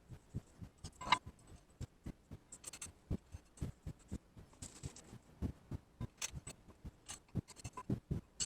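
Light, irregular clicks, taps and brief scraping rustles from small metal vise parts being handled and set down on a workbench, with one sharper knock about a second in.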